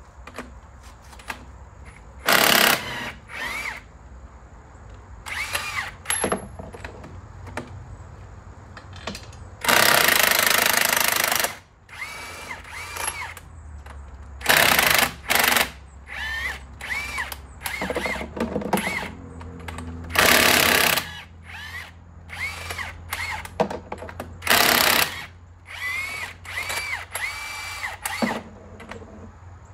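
Handheld power tool fitted with a socket, run in about a dozen short bursts, with a whine that rises and falls as each one starts and stops. One run of about two seconds a third of the way in is the loudest. It is backing out the hub cap bolts on a semi truck's wheel hub.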